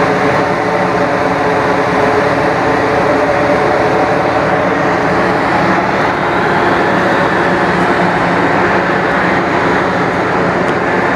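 Loud, steady drone of a ship's machinery heard on deck: a continuous hum with several steady tones held throughout.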